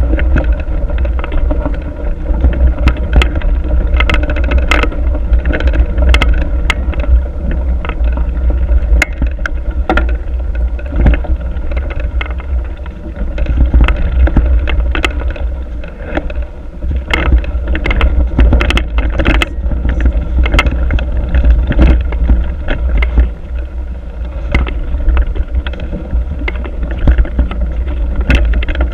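Mountain bike riding down a rough trail, heard from a GoPro on the bike or rider. Wind and vibration make a constant low rumble on the microphone, with frequent sharp clicks and rattles of the bike over bumps.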